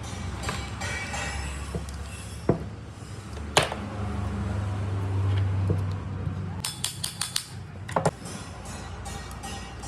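Sharp clinks and taps of small metal parts being handled during an angle-grinder repair, a few single knocks and a quick run of clicks about two-thirds of the way in, over steady background music.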